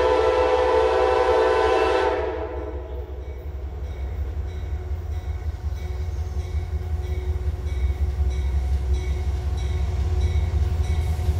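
A train's air horn sounding a chord of several tones together, cutting off about two seconds in. Then the low rumble of the passing train, growing gradually louder, with a faint regular clicking of wheels over the rails.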